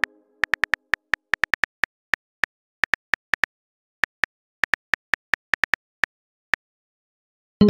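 Phone keyboard typing clicks: a run of short, light taps at an uneven pace, with two pauses. A message-notification chime starts right at the end.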